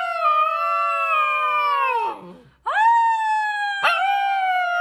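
Husky puppy howling: long, high-pitched howls that slowly fall in pitch and tail off. One howl ends about two seconds in, and a new one starts half a second later with a quick upward swoop.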